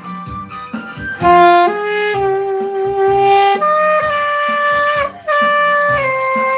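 Saxophone playing a slow melody of long held notes over a backing accompaniment with a steady beat, with a brief break between phrases about five seconds in.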